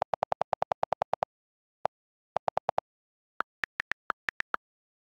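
iPad on-screen keyboard click sounds: a fast run of about a dozen lower-pitched delete-key clicks, then one more and a short burst of four as the text is erased. About three and a half seconds in, seven higher-pitched letter-key clicks follow as new text is typed.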